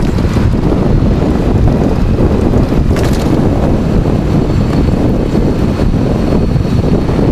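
Wind rushing over the microphone of a camera mounted low on a moving electric bike, with steady tyre and road rumble. There is a brief rattle about 3 seconds in, and a faint high steady whine comes in about halfway through.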